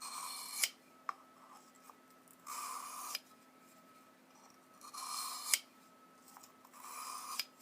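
Utility knife blade drawn across a sharpening stone: four scraping strokes about two seconds apart, each lasting under a second and ending with a sharp click.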